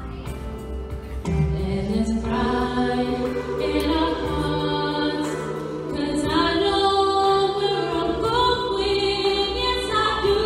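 A woman singing solo into a microphone, holding long notes with a wavering vibrato, over low sustained tones.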